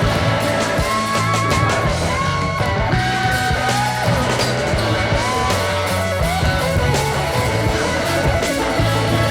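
Rock music with electric guitar and a steady bass line.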